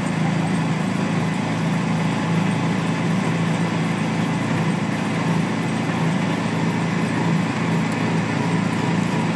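A vehicle driving steadily along a gravel road: a constant engine hum with tyre and road noise.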